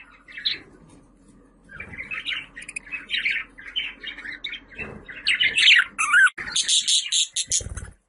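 Budgerigar warbling and chattering: a run of quick chirps that grows louder and harsher about five seconds in, with raspy squawks near the end.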